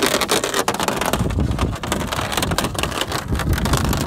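Canoe hull scraping and grinding across rough spring lake ice as it is dragged, a continuous harsh crackling rasp that sounds horrible.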